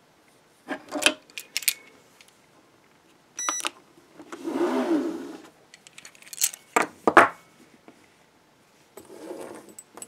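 Antique iron handcuffs, a 1941 M.C.I. pair with chain, being handled and set down: a series of sharp metal clinks and knocks from the cuffs and chain links, one with a brief ring, and a longer rubbing sound about halfway through.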